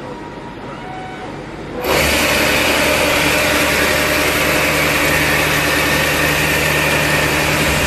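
Milling machine running with a Seco Double Octomill high-feed face mill: fairly quiet for about two seconds, then the cutter enters the cut with a sudden loud, steady rushing noise and a constant whine that holds.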